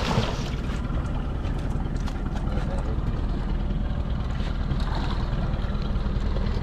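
A hooked fish splashing at the surface as it is lifted out of the water at the start, then scattered knocks and taps as it is handled on the boat's deck. Under it all is a steady low rumble from the boat and wind on the microphone.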